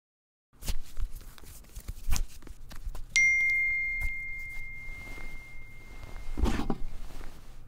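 Smartphone notification chime: a single bright ding about three seconds in that rings on and fades slowly, with a few soft knocks before it. Near the end a louder short thud and rustle as the phone is picked up.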